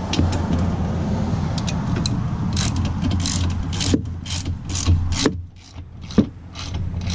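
Socket ratchet working in repeated rasping strokes, a couple a second, as the motorcycle's rear axle nut is tightened, with a few sharp clicks near the end.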